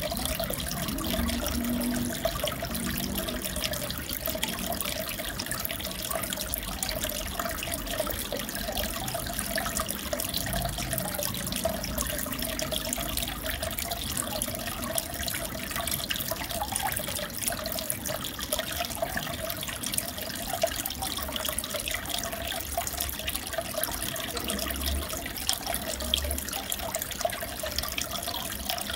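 Steady trickling and bubbling of aquarium water, with fine crackling splashes and a wavering hum underneath.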